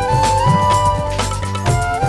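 Background music: an instrumental passage of a Bengali song, a stepping melody over a steady bass and a regular percussion beat.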